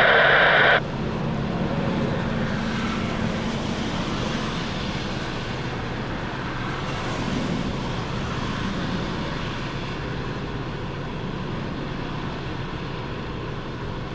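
Jet airliner engines giving a steady roar on the runway in the rain, swelling a little a couple of times. At the very start a brief burst of radio static cuts off.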